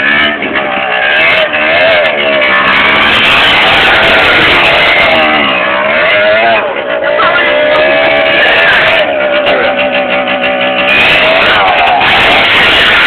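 Small quad bike's engine revving, its pitch rising and falling again and again as the throttle is worked.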